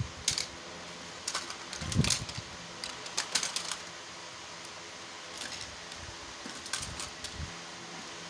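Plastic and die-cast metal toy cars clattering and clicking against each other as hands rummage through a cardboard box of them, loudest about two and three seconds in, over a steady background hum.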